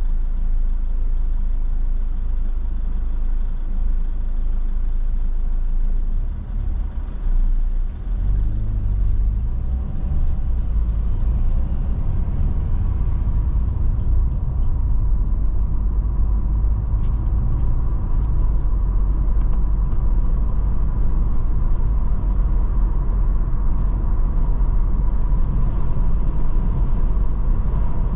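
Car engine and road noise heard from inside the moving car: a steady low rumble that grows fuller about six seconds in as the car pulls away from the intersection and gathers speed, with a few faint clicks partway through.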